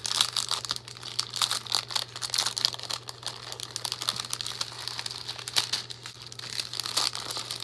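Clear plastic bag crinkling continuously with dense, irregular crackles as fingers pick it open, with paper rustling as the craft pieces inside are slid out near the end.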